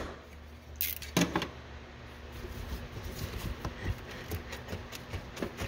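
Hands working a slit rubber heater hose off its fitting in a truck's engine bay: a couple of knocks about a second in, then a run of small irregular clicks and rattles, over a steady low hum.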